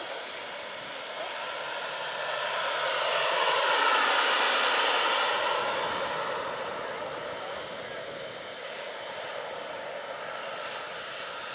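Turbine-powered RC scale model Bell 412 helicopter, about 1/5 scale, flying: a high turbine whine over a rushing rotor-and-engine noise. It grows louder to a peak about four seconds in, then fades.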